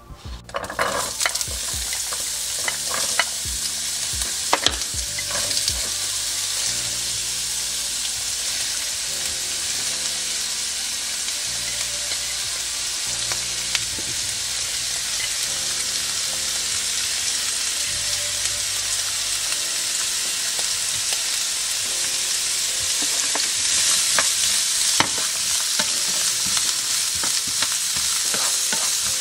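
Diced carrots, celery and onion sizzling as they sauté in a hot frying pan, stirred with a spatula. The sizzle starts suddenly just after the start, with clicks and knocks of the spatula against the pan in the first few seconds and again near the end.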